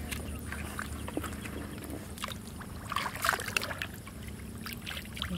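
Hands splashing and sloshing in shallow, muddy pond water while feeling through the mud for fish. The splashes come in short, irregular bursts, the loudest about three seconds in.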